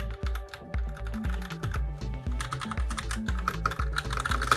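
Rapid key presses on a Razer BlackWidow Lite keyboard's Razer Orange switches, which are tactile and silent, making many quick, soft clicks. Background music with a steady beat plays underneath.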